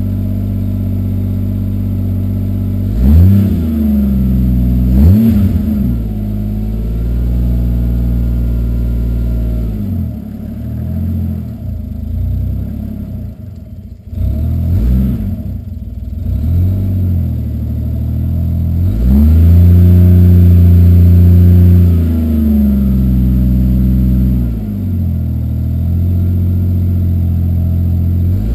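Toyota 2JZ-GTE straight-six with a Turbonetics T70 single turbo, running cold through a catless 3-inch exhaust with a MagnaFlow muffler. It idles between throttle blips: two quick revs about three and five seconds in, several smaller blips around the middle, and a rev held for about three seconds past halfway before dropping back, then another blip right at the end.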